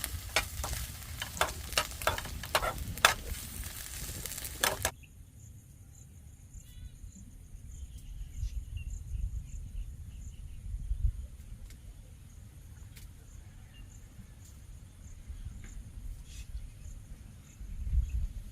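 Scrambled egg sizzling in a pan on a gas burner, with several scraping stirs, for about five seconds until it stops abruptly. Afterwards only a low rumble and a faint steady high tone remain.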